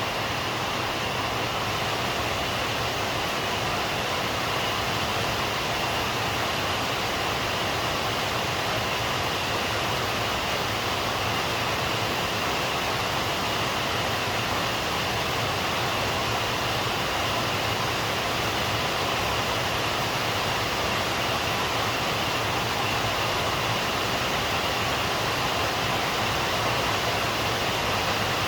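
Steady heavy rainfall, an even hiss of many drops with no distinct patters or thunder.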